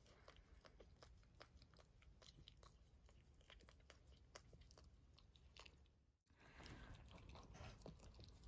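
Faint, rapid wet licking and smacking of a Cavalier King Charles Spaniel mother licking her newborn puppy clean, many small clicks close together. The sound drops out briefly about six seconds in, then the soft clicking resumes.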